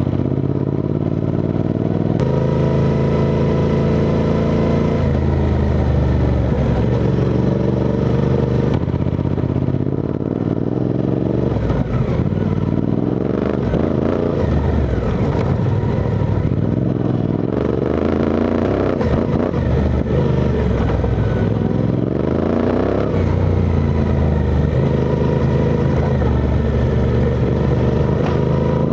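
Suzuki V-Strom 800DE's parallel-twin engine under way, its revs rising and falling several times as it changes gear and throttle.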